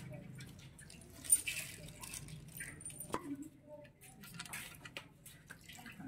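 Small metal parts clinking and tapping against the aluminium crankcase of a Honda Dio 110 engine as they are handled and fitted. The sharpest clicks come about a second in and again about three seconds in.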